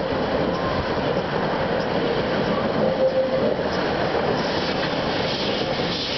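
Narrow-gauge steam train passing close by over a timber trestle bridge: the locomotive working under steam, then the carriages rolling past, a steady, dense rumble of engine and wheels on rails.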